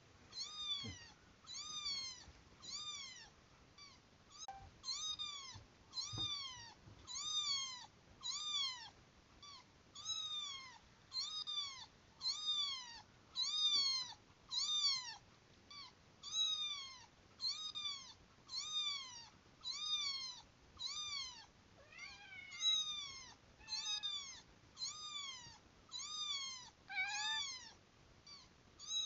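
Recorded kitten meows played back: short, high, arched mews repeated evenly about once a second. A few lower, differently shaped meows are mixed in near the end.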